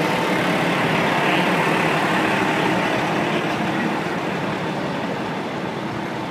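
Diesel fire trucks driving slowly past at close range: a steady engine and road noise.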